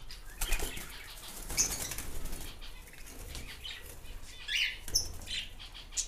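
Cockatiels fluttering and flapping their wings inside a wire cage, a quick run of short rustling flaps, with a few short high bird chirps.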